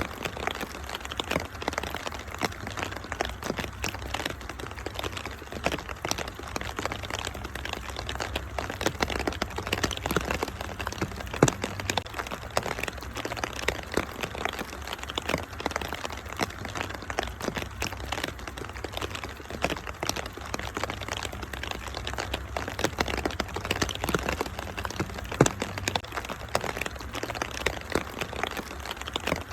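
Wood fire crackling with frequent irregular sharp pops and snaps, over a steady hiss of rain and a low rumble.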